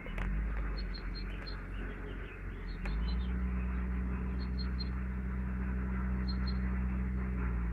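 Short high bird chirps in small groups of two or three, over a steady low hum that grows louder about three seconds in.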